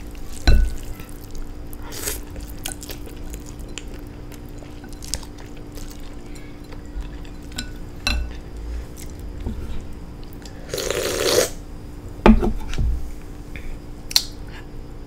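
Someone eating a bowl of instant noodles: a utensil clinking against the bowl now and then, a few soft knocks, and one longer noisy slurp about eleven seconds in.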